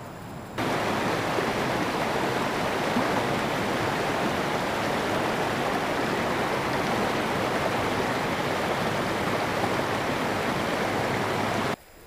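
Creek water rushing over rocks in a small riffle, a steady, even rush. It cuts in suddenly about half a second in and cuts off suddenly near the end.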